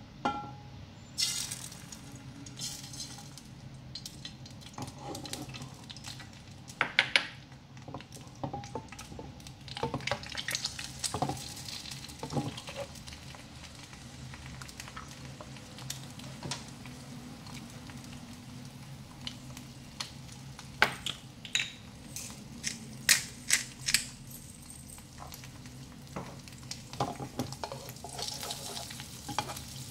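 An egg frying in hot oil in a nonstick pan: a steady sizzle with many sharp pops and crackles, coming in clusters about a third of the way in and again past two thirds. A low steady hum runs underneath.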